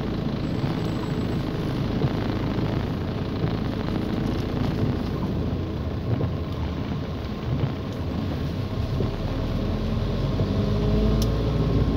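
A car driving on wet streets, heard from inside the cabin: steady engine and road noise with tyres on a wet surface. The engine picks up near the end.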